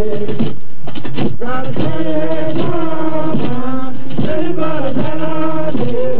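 A railroad track gang of men singing a work chant together, in long held notes with short breaks between lines. It is a gandy dancers' track-lining song, the kind sung to time the crew's heaves on the lining bars.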